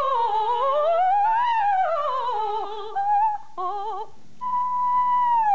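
A woman's voice doing wordless vocal warm-up exercises: wavering pitch slides up and down, a few short broken notes about three seconds in, then a held high note that begins gliding down near the end.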